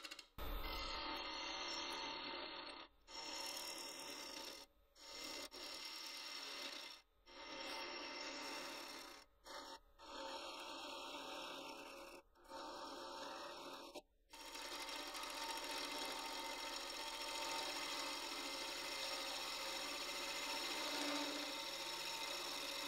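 A turning gouge cutting into a spinning manzanita burl on a wood lathe, giving a steady rasping hiss as shavings peel off. It breaks off abruptly several times in the first half, then runs on unbroken.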